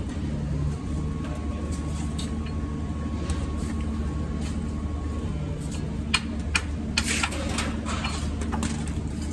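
Steady low engine-like rumble, with a few sharp clicks and short scraping sounds about six to eight seconds in.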